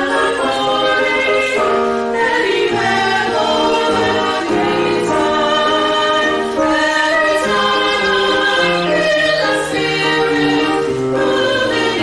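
Choral music: a choir singing held chords that change every half second to a second.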